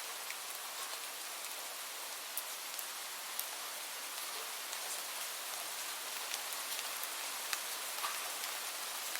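Light rain falling steadily, a soft even hiss with many separate drops ticking sharply on a surface.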